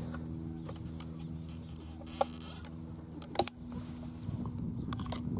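Handling noise from a phone held in a tripod clamp: a few sharp clicks and knocks, the loudest pair about three and a half seconds in, over a steady low hum.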